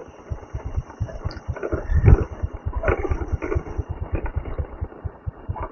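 Motorcycle engine running at low speed on the move, an even rapid beat of low firing pulses, with one louder thump about two seconds in.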